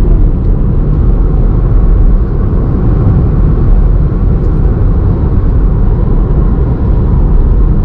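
Maruti Suzuki Baleno driving at highway speed: a steady, loud low rumble of road and wind noise.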